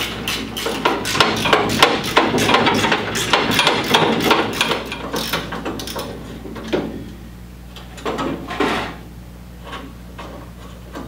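Ratchet wrench clicking rapidly as it backs out the nuts and bolts holding the top rings of an antique gas pump. The clicking stops about six seconds in, followed by a few separate clunks and scrapes of metal.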